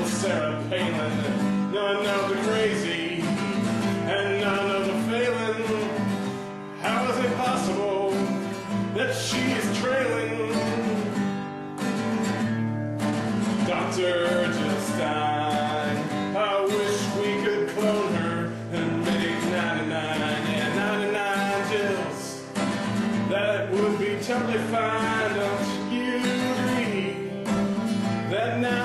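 A man singing while strumming an acoustic guitar, solo.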